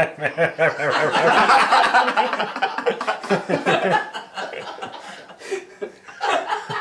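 Several people laughing together in rapid bursts of chuckling, loudest in the first few seconds, dying down after about four seconds and flaring up again near the end.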